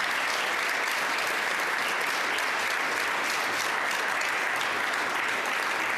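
Steady applause from a large seated group of people clapping their hands.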